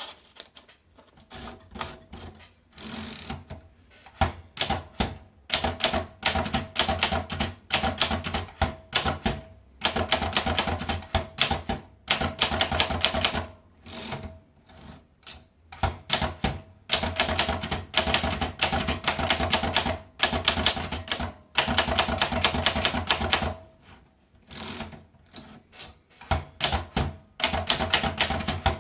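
Adler Favorit manual typewriter being typed on: runs of rapid keystrokes lasting several seconds, broken by short pauses.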